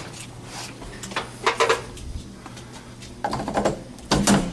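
Steady low hum of an air handler's blower motor running, with three bursts of clattering and knocking, about a second, three seconds and four seconds in, as equipment in the closet is handled.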